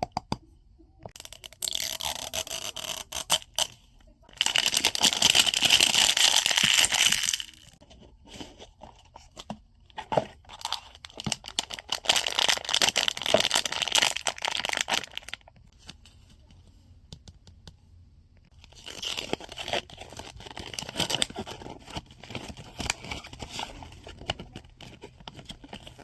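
Blind-box packaging being opened by hand: wrappers tearing and crinkling and cardboard scraping, in several bursts with short pauses between, the longest and loudest a few seconds in.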